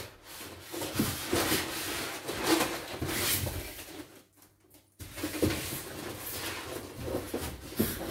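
Large polystyrene foam packing blocks being handled and pulled apart, foam rubbing against foam and cardboard with scattered knocks, briefly going quiet about four seconds in.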